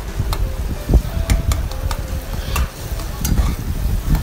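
A slotted spatula stirs and scrapes a vegetable masala around a black kadai, with irregular scrapes and knocks against the pan over a steady sizzle of the masala frying in oil.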